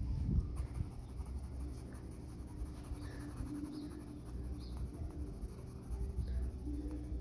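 Orange Faber-Castell Ecolápis neon colored pencil scratching on paper, shading in a circle with steady strokes.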